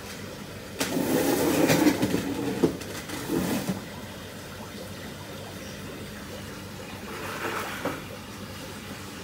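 Water rushing and splashing for about three seconds, then a shorter, quieter splash near the end, over a steady background hiss.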